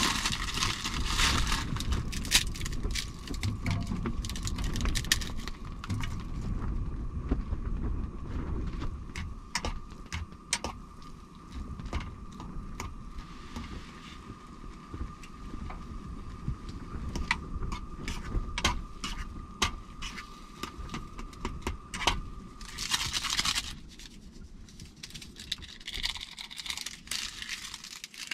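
Plastic ramen noodle packet crinkling and dry noodles crumbling into a pot, with many small crackles and clicks over a steady thin whine that stops about 23 seconds in. Near the end a seasoning packet tears and crinkles.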